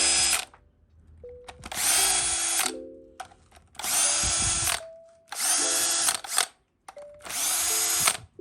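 A small cordless power tool with a 10 mm socket spinning out Hemi valve cover bolts in five short runs of just under a second each, about two seconds apart.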